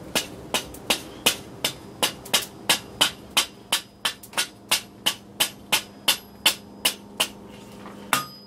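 Hand hammer striking a red-hot steel ring on the anvil face to flatten it: a steady run of blows, about three a second. Near the end the strikes ring with a clear high tone.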